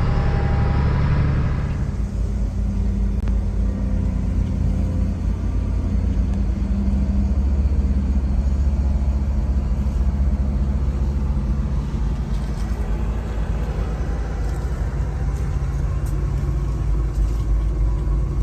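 Farm vehicle engine running with a steady low rumble; some higher-pitched sound drops away about two seconds in.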